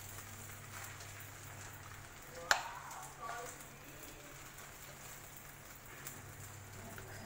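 Rice noodles sizzling in a hot wok as they are tossed with chopsticks: a steady low hiss, with one sharp knock against the wok about two and a half seconds in.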